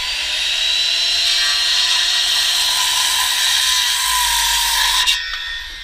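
Electric power tool running steadily at full speed, then switched off about five seconds in, its motor winding down with a falling pitch.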